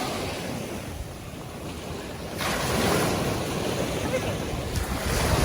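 Sea waves washing onto a sandy beach, a continuous surf hiss that swells louder about two and a half seconds in as a wave breaks and rushes up. Wind buffets the microphone with a low rumble.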